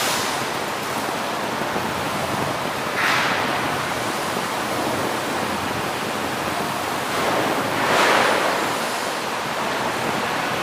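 Steady rushing noise without any clear tone, swelling briefly twice, about three and eight seconds in.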